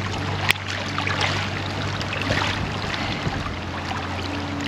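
Small waves washing and lapping against a rocky shoreline, over a steady low hum, with one sharp click about half a second in.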